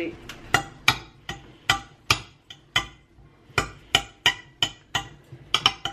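Two metal forks clinking and scraping against a glass baking dish while pulling apart a cooked pork roast: a dozen or so sharp, briefly ringing clinks at an uneven pace, with a short lull about halfway through.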